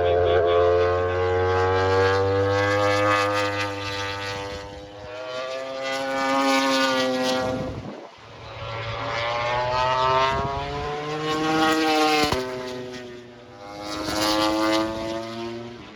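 Racing motorcycles passing at speed, several in turn, each engine note climbing as it revs and then falling away as the bike goes past.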